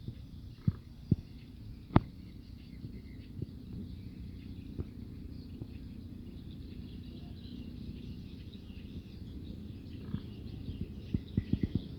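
Faint bird chirps over a steady low rumble, with a few sharp knocks in the first two seconds, the loudest about two seconds in.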